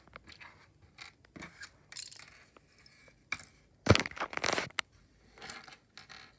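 LEGO set packaging and parts being handled: scattered rustling and clicks, with a loud crunching, tearing burst lasting about a second, starting about four seconds in.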